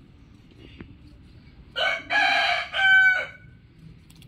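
Rooster crowing once: a loud three-part cock-a-doodle-doo of about a second and a half, starting nearly two seconds in and ending on a held note that trails off.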